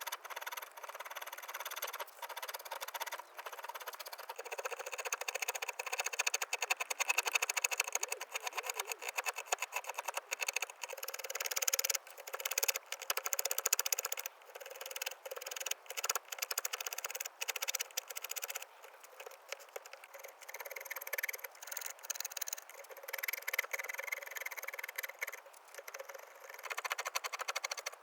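Carving tool working a block of cherry wood: a continuous rapid scraping and cutting, coming in uneven spells that swell and ease off.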